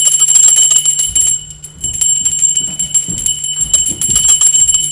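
A small bell rung rapidly and without a break: a loud, shrill metallic ringing summoning a servant.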